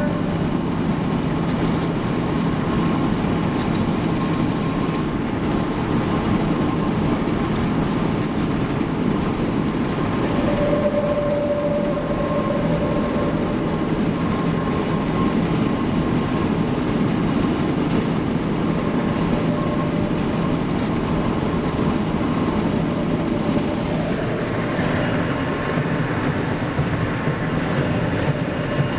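Steady wind and road noise from a car driving at highway speed, heard from inside the moving car, with wind buffeting the camera's built-in microphone.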